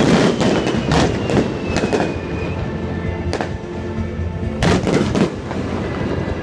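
Fireworks bursting: a dense run of bangs and crackling in the first two seconds, then a single sharp bang a little past three seconds and three quick bangs around five seconds. Music plays steadily underneath.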